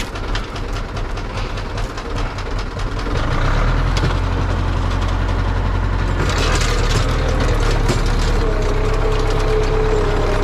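Tractor diesel engine running; it gets louder and steadier about three seconds in. A steady whine joins it from about six seconds.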